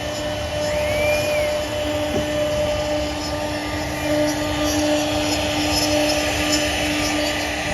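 CNC router spindle running steadily while cutting wood, a constant machine noise with a held hum. A brief high tone rises and falls about a second in.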